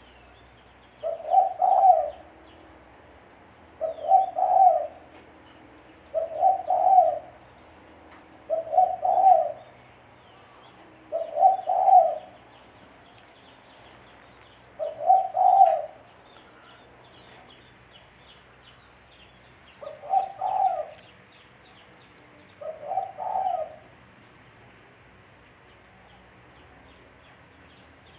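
Spotted dove (tekukur) cooing: eight short phrases of several low coo notes each, repeated every two to three seconds, with a longer pause before the last two, then stopping near the end.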